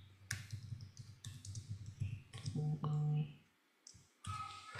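Computer keyboard keystrokes clicking as a short phrase is typed, in a run of separate taps. A brief low hum comes in the middle.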